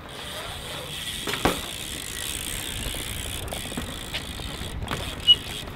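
BMX bike rolling over concrete, its rear hub ticking as it coasts, with scattered clicks and a sharp knock about five seconds in.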